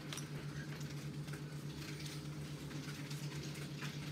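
Light taps and scrapes of hands working dough on a floured sheet, with an empty glass bottle picked up and rolled over the dough as a rolling pin. A steady low hum runs underneath.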